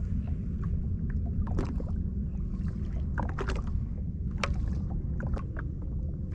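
Small waves slapping and lapping against the hull of a drifting Sea-Doo jet ski over a steady low rumble, with a few short sharp slaps and ticks about one and a half, three and a half, four and a half and five and a half seconds in.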